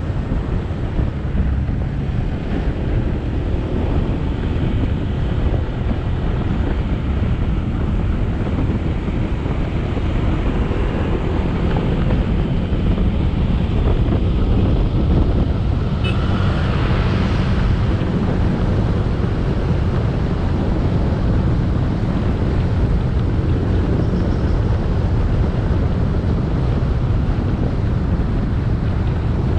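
Motorbike engine running on the move under heavy wind buffeting the microphone, a steady low rumble throughout. A brief higher-pitched sound stands out from it a little past halfway.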